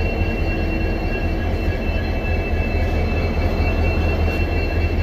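ALCO diesel-electric locomotive's engine running through a shunting move: a deep, steady rumble with a thin, steady high whine above it.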